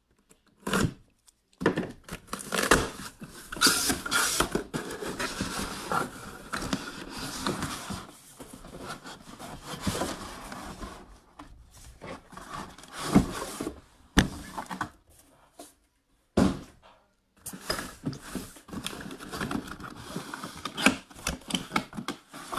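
A sealed box of full-size football helmets being opened by hand: cardboard and seal tearing, plastic packaging rustling and crinkling, with scrapes and sharp clicks and knocks in uneven bursts.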